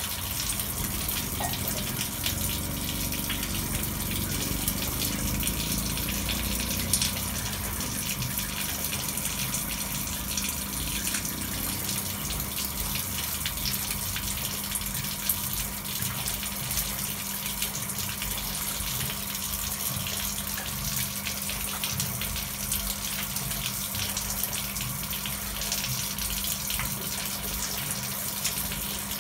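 Water running steadily into a garden fish pond, splashing on the surface.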